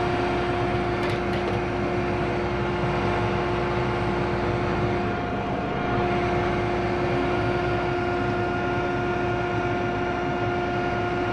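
John Deere T670i combine harvester running while stationary: a steady mechanical drone with a constant high whine over it.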